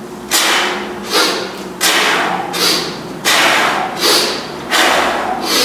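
Hard, rhythmic breathing of a man doing one-arm kettlebell swings: a forceful hissing breath in or out about every three-quarters of a second, in time with each swing.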